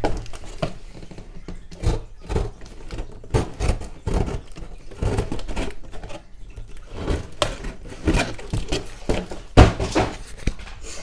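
Cardboard box being handled and worked apart by hand, with irregular scrapes, crackles and knocks. The sharpest knock comes a bit more than a second before the end.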